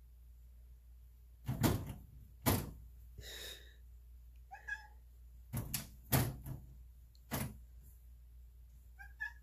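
A cat leaping up and hanging from a lever door handle, the door and handle knocking and rattling in a run of sharp thumps, with a couple of short squeaky sounds.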